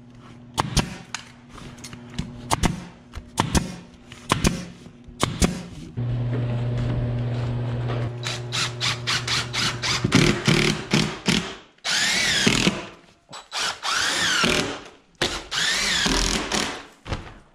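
A staple gun firing a series of sharp shots, about one a second, fastening tarp to a wooden frame. Later a DeWalt cordless impact driver runs in several bursts, its whine rising and falling as it drives screws through a wooden strip.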